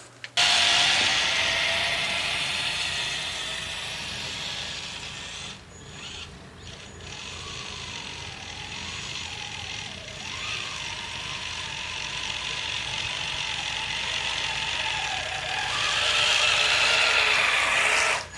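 Radio-controlled truck driving on 3D-printed tracks: the electric motor and gear drive whine and the tracks clatter. The whine rises and falls with the throttle, and the sound cuts out briefly twice around six seconds in.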